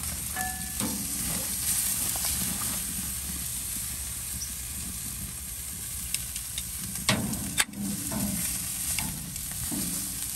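Beef short ribs sizzling steadily on a hot grill grate as they are seared. Two sharp metallic clicks a little past the middle, as the metal tongs knock against the grate.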